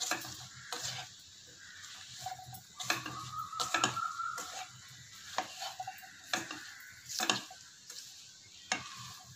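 A slotted spatula stirring sliced mushrooms and onion-tomato masala in a nonstick pan: irregular scrapes and knocks against the pan, over a faint sizzle.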